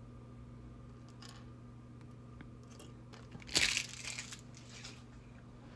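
A brief crunchy rattle of small plastic building-block pieces being handled, about three and a half seconds in, over a steady low electrical hum.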